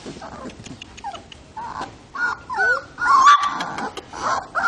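Three-week-old Border Collie puppies squeaking and whimpering in short high cries that bend up and down, several in quick succession from about two seconds in. The owner puts the squeaking down to the puppies getting cold.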